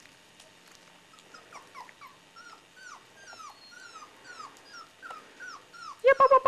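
Border Collie puppy whimpering: a run of faint, short squeaks, each falling in pitch, about three a second, starting about a second and a half in. Near the end a much louder held call with clicks cuts in.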